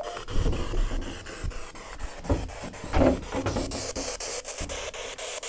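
Rubbing and rustling of a handheld camera being carried, with uneven low thuds from footsteps.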